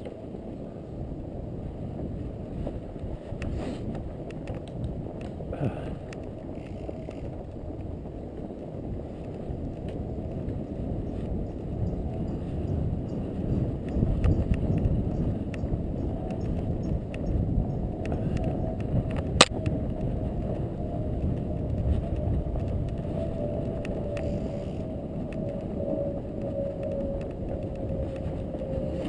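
A fat bike riding: a steady low rumble of rolling tyres and wind on the microphone, with scattered light clicks. About two-thirds through comes one sharp click. In the second half a hum slowly drops in pitch.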